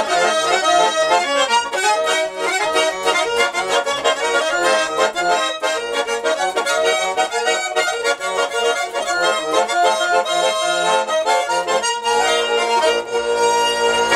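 Garmon (Russian button accordion) playing a quick run of notes, ending on a held chord that cuts off suddenly.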